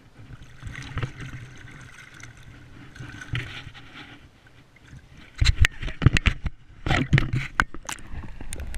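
River water splashing and sloshing around hands holding a salmon at the surface for release. A burst of loud splashes and knocks comes in the second half as the camera is plunged underwater.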